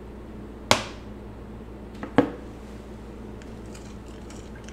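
Two sharp clinks of a measuring spoon against a glass mixing bowl, about a second and a half apart, each with a short ring, while salt water and dish soap are being mixed.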